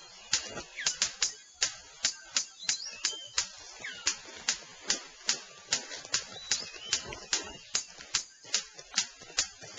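Male superb bird of paradise during his courtship display: a rapid, irregular series of sharp clicks, about two to three a second, mixed with short chirping calls.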